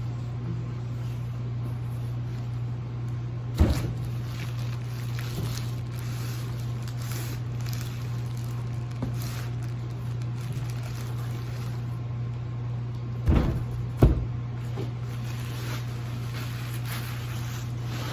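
Handling noise from unpacking a ceiling fan: faint rustling, with a knock about three and a half seconds in and two more close together near thirteen and fourteen seconds. A steady low hum runs underneath.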